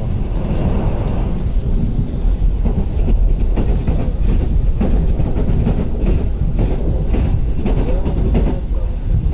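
Inside an ŁKA 36WEd electric multiple unit in motion: a steady low rumble of wheels on rail, with repeated clicks as the wheels pass over rail joints.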